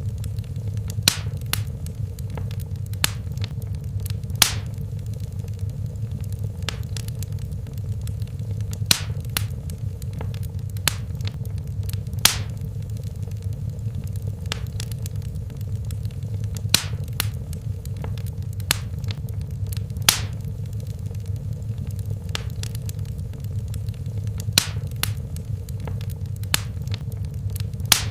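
Fireplace fire crackling: irregular sharp pops and snaps, a dozen or so louder ones, over a steady low rumble of the flames.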